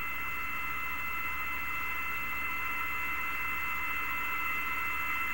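Steady hiss and low hum of a mission-control radio loop between transmissions, with a few faint steady high tones.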